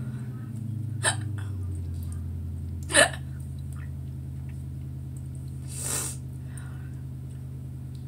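Hiccups brought on by eating spicy noodles: two sharp hiccups about two seconds apart, the second louder, then a softer breathy sound about six seconds in, over a steady low hum.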